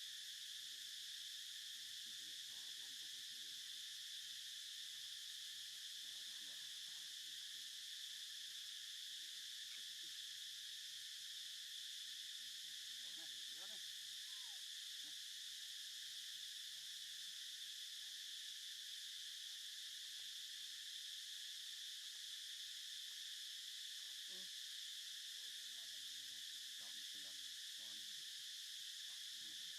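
Steady, high-pitched chorus of insects, an even unbroken drone.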